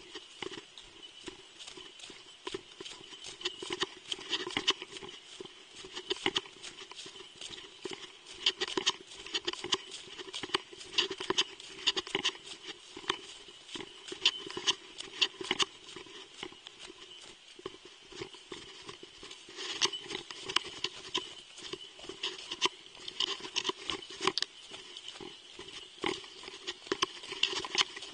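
Hiker's boots stepping along a snowy mountain trail: a continuous, irregular run of footsteps with short clicks and scuffs, coming in denser clusters every few seconds.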